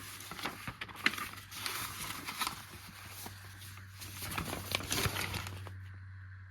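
Paper rustling as printed pamphlets and pages are handled, a run of quick crackles and taps that stops about five and a half seconds in.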